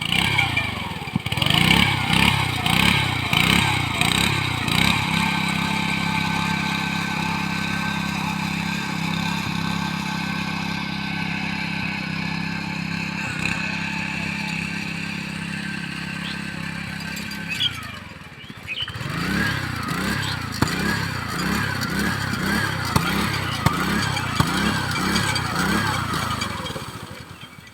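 Rice combine harvester's engine running under load. It holds a steady pitch for most of the stretch, drops briefly about two-thirds of the way through, then picks up again with the pitch wavering.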